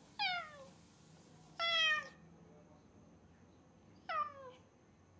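A house cat meowing loudly three times, each meow about half a second long and falling in pitch, with pauses of one to two seconds between them. The cat is calling out while left home alone.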